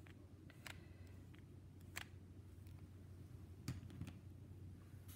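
Near silence over a low steady hum, with a handful of faint plastic clicks from a Kenner Super Powers Darkseid action figure being handled, its legs squeezed to work its arm-swinging action.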